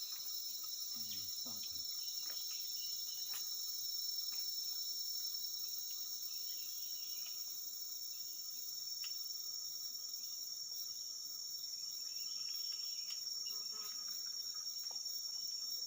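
Steady chorus of forest insects, a continuous high-pitched drone, with a few faint clicks here and there.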